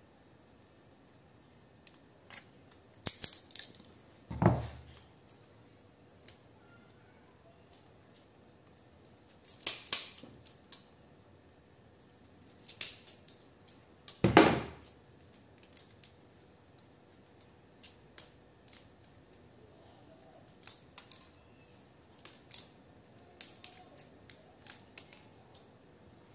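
Pliers cracking and snapping plastic terminal blocks off a fluorescent-light ballast core: a few clusters of sharp cracks, the loudest about four and a half and fourteen seconds in. Lighter clicks of small plastic pieces follow near the end.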